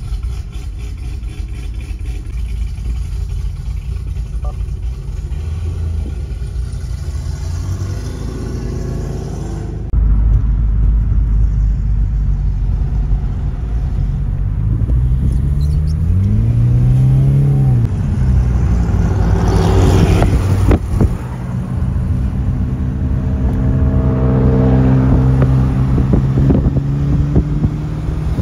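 Car engines driving, heard from inside a car. A steady engine drone gets suddenly louder about a third of the way in. An engine then revs up and back down, and near the end its pitch climbs steadily as it accelerates.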